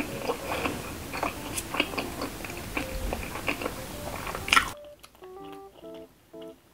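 A person chewing food close to the microphone, with clicks and crunches over light background music. About three-quarters of the way through, the chewing cuts off abruptly and only the music carries on, a simple melody of short notes.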